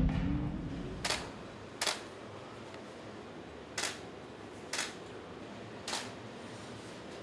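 Camera shutter clicking five times at uneven intervals over a low room hiss, after a music track fades out in the first second.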